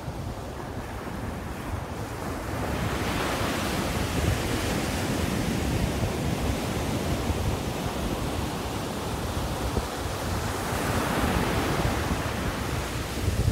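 Ocean surf breaking and washing up a sandy beach as a steady rush of water, swelling louder about three seconds in and again near the end as waves come ashore.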